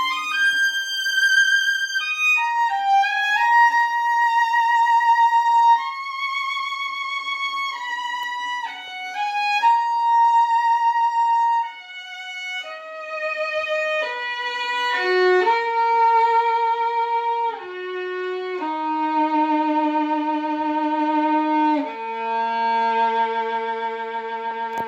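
Violin playing a slow melody of long held notes with vibrato, moving stepwise and settling on a lower sustained note about three-quarters of the way through.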